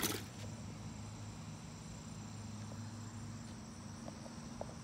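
Insects trilling steadily at a high pitch, with a low steady hum underneath. A brief rustle of the phone being handled right at the start.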